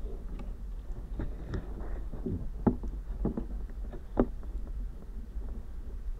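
Hands tearing and crumbling a pasty underwater, heard through a hydrophone: muffled swishing of water over a low rumble, with scattered soft knocks, the sharpest nearly three seconds in and about four seconds in.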